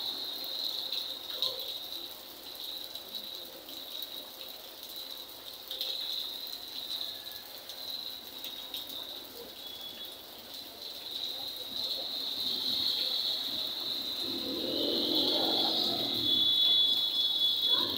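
Rain on a flooded street: a steady high hiss with scattered drips and splashes. A motor vehicle goes by on the wet road about fifteen seconds in, the loudest part.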